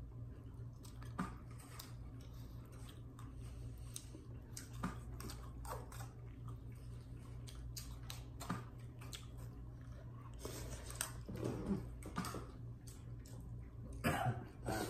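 A person eating chicken soup: chewing, with scattered sharp clicks of a spoon against a bowl. A steady low hum runs underneath.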